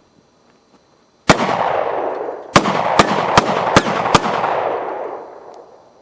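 Ruger SR1911 Commander .45 ACP pistol fired six times. A single shot comes first, then after more than a second five quick shots follow at about two and a half a second, each echoing, the echo fading away after the last.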